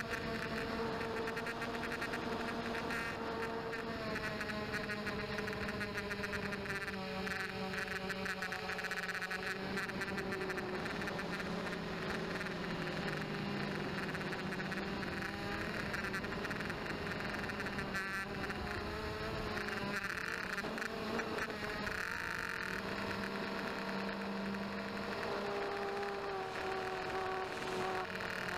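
Blade 200QX quadcopter's motors and propellers buzzing, heard from a camera mounted on the craft. Several motor tones slide up and down and cross each other as the throttle changes.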